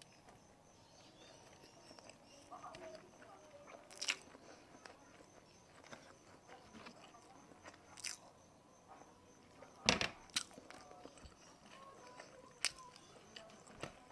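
Close-miked eating: chewing and biting, broken by about half a dozen sharp clicks, the loudest about ten seconds in.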